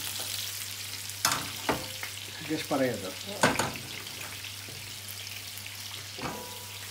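Fish pieces sizzling steadily in hot oil in a frying pan. About a second in come several clunks and a scrape as the pan and a lidded pot are moved across the gas hob's grates, then one lighter knock near the end as the pot's glass lid is taken hold of.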